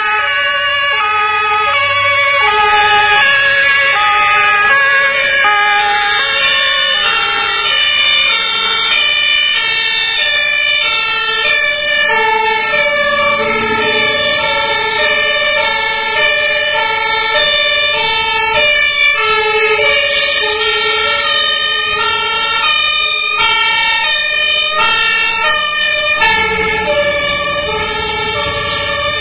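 Several fire engines' two-tone sirens sound together, each alternating between a high and a low note at its own pitch and out of step with the others: a convoy on an emergency run. Near the end the low rumble of a truck's diesel engine rises under the sirens as a vehicle pulls closer.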